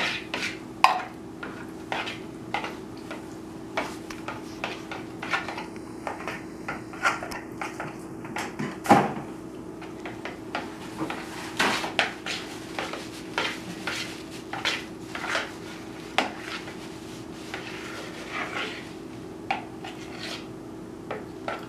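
A spoon stirring in a plastic mixing bowl: irregular clicks and scrapes against the bowl, one or two a second, with one louder knock about nine seconds in. A steady low hum runs underneath.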